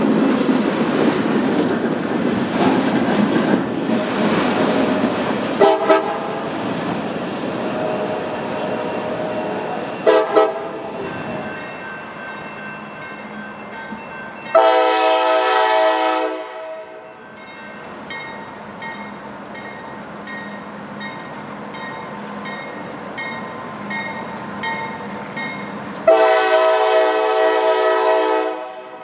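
A passing freight train's rumble and wheel clatter, then the diesel locomotive's multi-chime horn: two short toots followed by two long blasts, each about two seconds, roughly ten seconds apart. A regular high ringing repeats in the background.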